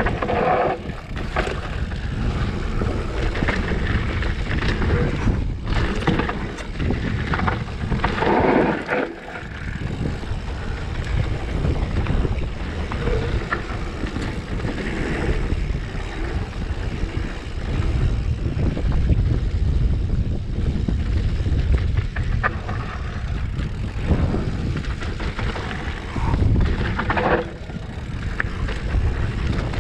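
Wind buffeting the action-camera microphone over a Specialized Stumpjumper mountain bike's knobby tyres rolling fast on a dry dirt trail, with scattered clicks and rattles from the bike. The rush swells louder about eight seconds in and again near the end.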